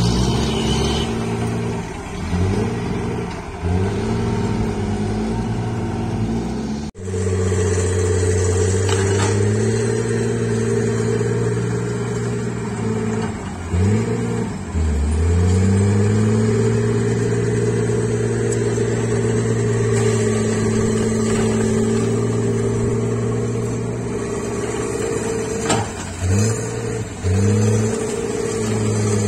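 Heavy diesel machinery running: for about seven seconds a tipping dump truck with a Cat D4C dozer close by. Then, after a sudden cut, a Komatsu PC130 hydraulic excavator's diesel engine runs steadily under load, its pitch dipping briefly a few times.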